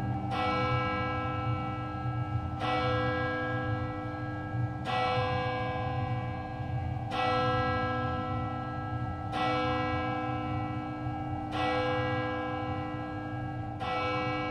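A bell tolling slowly, seven strokes about two and a quarter seconds apart, each ringing on until the next. It is a memorial toll, one stroke for each person who died of a drug overdose.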